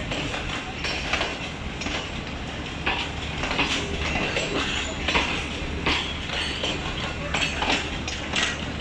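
Passenger coaches of a train rolling past, their steel wheels giving repeated clicks and knocks over the rail joints, about one a second, over a steady rumble of running gear.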